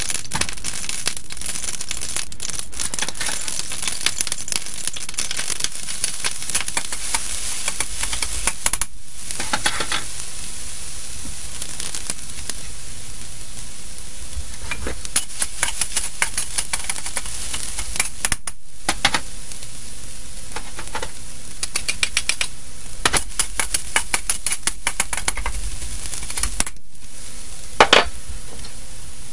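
Hot oil and minced garlic sizzling in a wok: a steady hiss with scattered crackling pops. It breaks off briefly three times.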